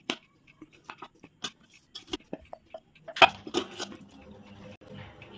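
Wooden spatula clicking and scraping against a steel bowl and a glass jar as thick grated-mango pickle is scooped into the jar. The clicks are scattered, with one sharper knock a little past three seconds in, followed by scraping.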